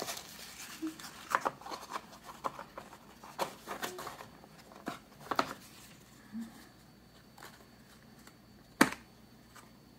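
Tissue paper rustling and small paper-covered boxes being handled, a scattering of light clicks and rustles. About nine seconds in comes one sharp tap, the loudest sound, and after it things go quieter.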